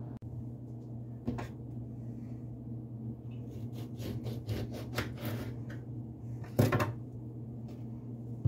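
Kitchen knife cutting into an orange on a stone countertop: a run of short scraping cuts, then a sharp knock of the knife being put down on the counter near the end. A steady low hum runs underneath.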